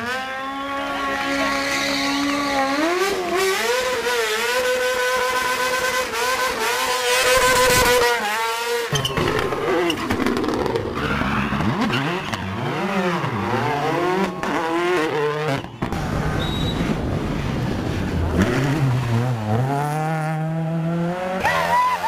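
Rally car engine revving hard, its pitch swinging up and down again and again as the car is driven and slid, with tyre squeal. The sound breaks off and changes abruptly twice.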